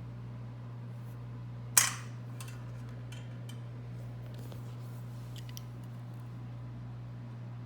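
A single sharp clack about two seconds in, then a few faint small clicks, from small hard objects being handled, over a steady low hum.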